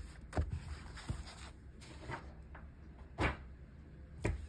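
A softcover coloring book being handled and lifted off a wooden desk: several light knocks and thumps, the loudest just after three seconds in.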